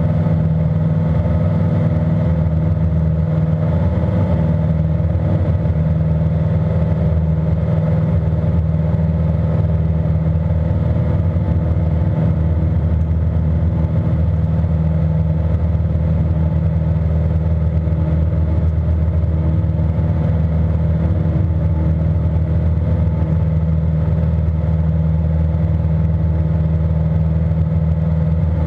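A Cessna 182R's six-cylinder piston engine and propeller drone steadily in the climb after takeoff, heard inside the cockpit. There is a constant low hum with no change in pitch.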